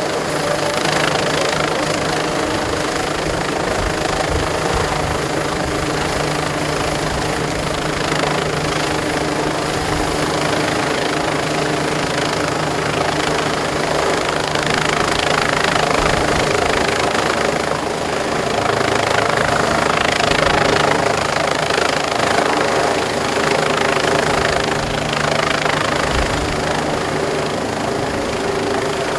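Disaster-prevention rescue helicopter running steadily, a continuous loud rotor and turbine drone with steady tones that swells a little through the middle.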